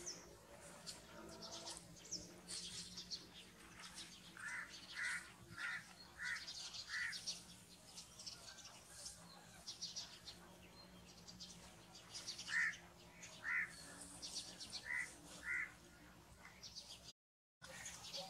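Birds chirping throughout, with short high chirps. Two runs of about five repeated, clear call notes roughly half a second apart come in, one about four seconds in and one about twelve seconds in. The sound cuts out briefly near the end.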